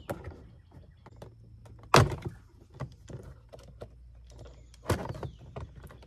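Plastic door trim clicking and knocking as the power-window switch panel on a Honda Element's door armrest is pried up. Two sharp snaps stand out, the loudest about two seconds in and another just before five seconds, as its plastic retaining clips let go.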